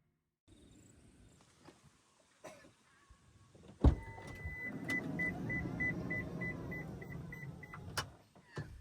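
Car power sliding door running on its motor for about four seconds with a rapid repeating warning beep, starting after a sharp click about four seconds in and ending with another click.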